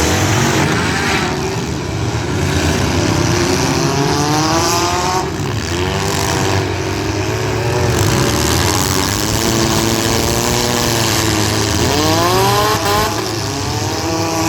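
Demolition derby street stock cars' engines revving hard, several at once, their pitch repeatedly rising and falling as the cars accelerate, brake and reverse.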